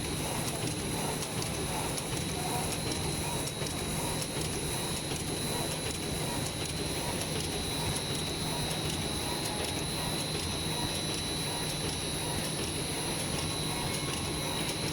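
Plastic bag making machine running steadily: a continuous mechanical hum with two high, constant whines and faint rapid clicking.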